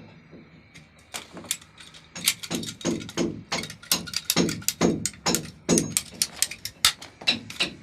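Percussion music: fast, uneven drum strokes, several a second, some with a falling low boom.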